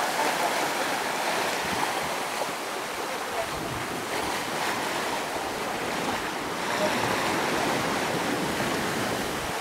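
Sea water rushing and splashing along the hull of a sailing yacht under way at about 7.5 knots, with wind.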